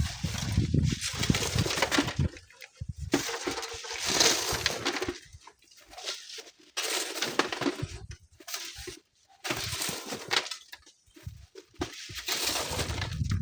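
Strong gusty wind buffeting the microphone in irregular bursts of rumble and hiss, dropping out suddenly several times.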